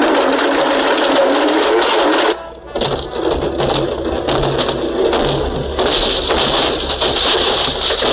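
Blendtec blender running, grinding an iPhone to pieces. The sound breaks off about two and a half seconds in and comes back duller. It is heard as a video played over a hall's loudspeakers.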